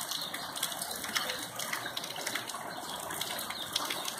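Steady rain falling, with scattered drop ticks through it.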